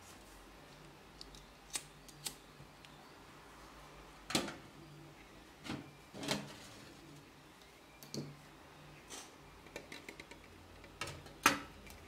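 Scattered clicks and knocks of small metal cans and a thin sheet-metal case being handled and set down on a table as a can burner is put in place under a homemade free-piston Stirling engine. The sharpest knock comes near the end, as the engine's can body is set on top of the case.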